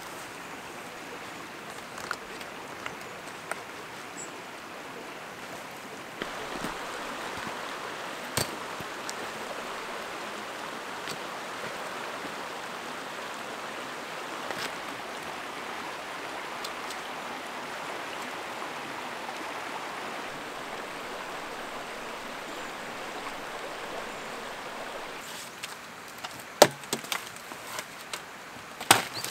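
Steady rushing of a river flowing over rocks, louder through the middle. Near the end, several sharp cracks and snaps of dead branches being broken off for firewood.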